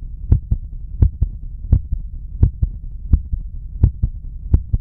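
Heart sounds heard through a stethoscope: a regular lub-dub, with the first and second heart sounds in close pairs at about 85 beats a minute, over a steady low rumble.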